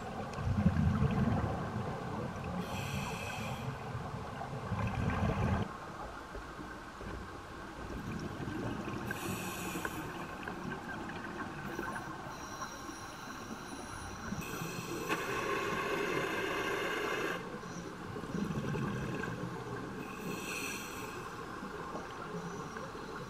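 Scuba diver breathing through a regulator underwater: a hiss on each inhale alternating with a low rumble of exhaled bubbles, a slow breath every five or six seconds.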